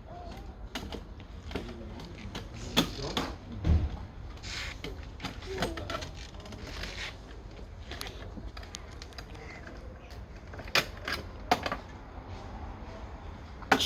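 Irregular clicks and knocks from a child's toy car being handled, with a few sharper knocks near the end.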